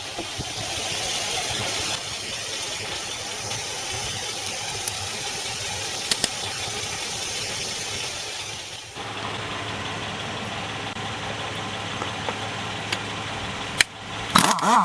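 HT25L-15A 12 V DC air compressor running steadily. About nine seconds in its sound shifts to a steadier low hum. A few sharp clicks come around six seconds, and a short loud burst comes near the end.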